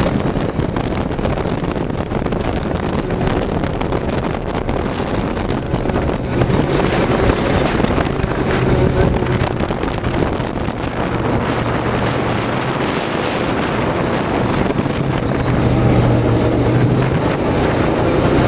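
Arctic Cat Wildcat 1000 side-by-side's V-twin engine running at speed on a dirt track, mixed with tyre noise and wind buffeting the microphone. Steady throughout, with the engine note swelling now and then.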